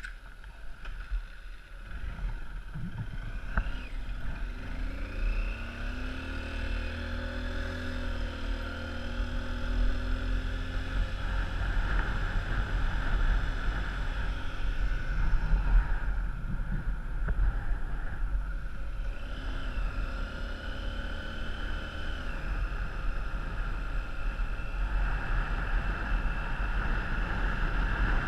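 Vehicle engine running on the move over a steady low rumble, its pitch rising and levelling off twice as it changes speed.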